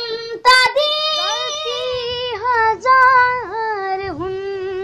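A boy singing unaccompanied: long held notes in a high voice, with quick wavering turns and dips between them.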